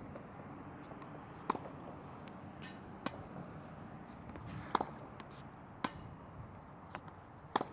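Tennis balls struck with rackets in a forehand feeding drill: five sharp pops spread about one to one and a half seconds apart, with a few fainter ball bounces on the hard court between them, over faint steady background noise.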